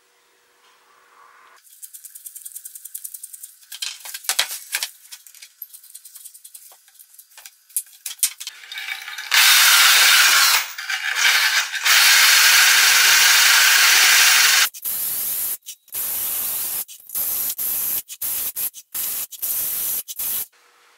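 Power-driven wire cup brush scouring rust off the steel lid of an oil bath air filter. It starts with scratchy rattling, settles into a loud steady scrubbing from about nine seconds in, then comes in several short bursts that each stop abruptly.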